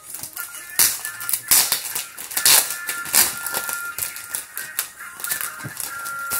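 Paper and plastic-sleeved sheets rustling and crinkling as they are shuffled by hand, in irregular bursts, over soft background music.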